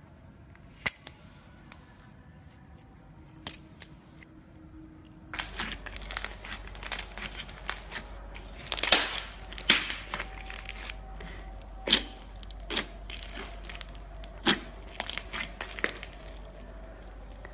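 Jelly cube slime being squeezed and pressed by hand, crackling and popping. There are a few sharp pops at first, then from about five seconds in a dense run of crackles over a low hum.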